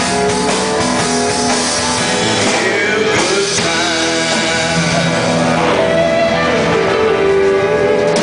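Live country band playing: electric guitars and drum kit in full swing.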